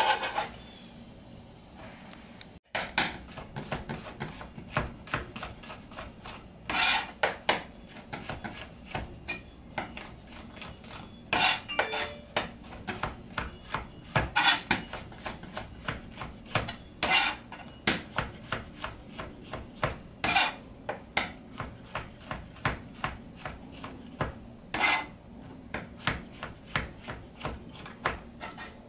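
Chef's knife slicing raw pork, then mushrooms, on a plastic cutting board: a steady run of short knife taps against the board, about two a second, with a few louder, longer strokes.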